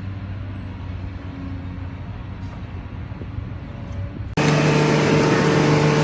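A heavy vehicle engine running steadily with a low hum, cut off abruptly about four seconds in by a louder, different sound with a steady droning tone.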